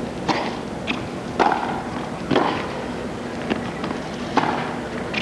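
Tennis rally: a ball struck back and forth by rackets and bouncing on a hard court, heard as sharp separate pops about every half second to a second over a steady crowd and stadium bed.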